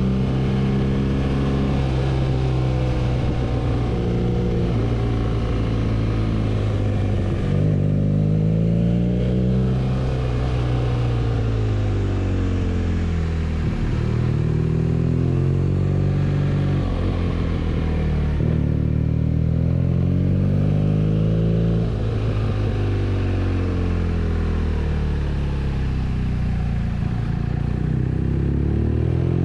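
BMW R nineT's air/oil-cooled boxer twin engine running under way, its note rising and falling again and again as the bike accelerates, changes gear and slows.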